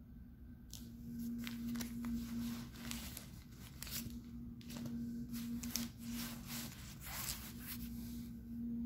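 Diaper padding being handled and shifted, giving irregular rustling and crinkling strokes that start about a second in and stop shortly before the end.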